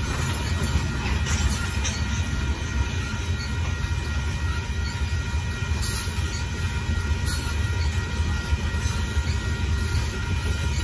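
Freight train of limestone hopper cars rolling past a grade crossing: a steady heavy rumble of steel wheels on rail, with a few short clanks.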